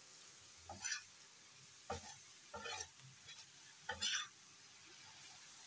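A metal spatula scrapes and presses mustard-green saag across a hot iron tawa in a few soft strokes, over a faint steady sizzle. The greens are being pressed to drive out their remaining water.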